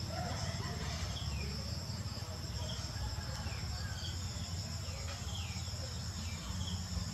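Steady high-pitched trilling of insects, with short chirps every second or so and a low rumble underneath.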